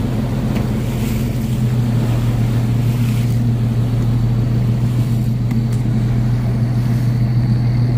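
Small fishing boat's engine running steadily under way, a low even hum over a rushing hiss.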